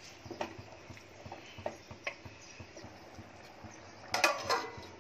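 A metal spoon taps and scrapes a few times in an aluminium pot of rice and broth. About four seconds in, a steel plate clatters onto the pot's rim as a lid, with a brief metallic ring.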